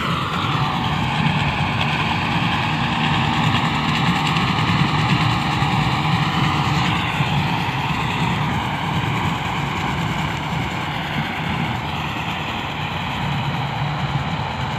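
Kubota MU 5501 four-cylinder diesel tractor working under load, driving a paddy straw cutter through rice stubble. A steady low engine drone runs under a busier, higher whirring whose pitch sags and rises slightly.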